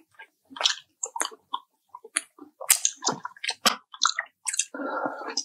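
Chewing and biting of juicy fried chicken: a string of short, sharp mouth clicks and crunches, with a brief denser burst of noise near the end.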